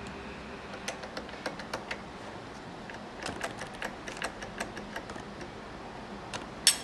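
Light metallic clicks and ticks of a Freud drawer pull router bit being seated and worked by hand in a router table's collet, in irregular clusters, with one sharper, louder click near the end.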